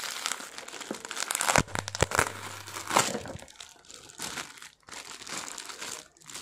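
Clear plastic courier bag crinkling and rustling as a small cardboard box is pulled out of it and handled, with a cluster of sharp crackles about one and a half to two seconds in.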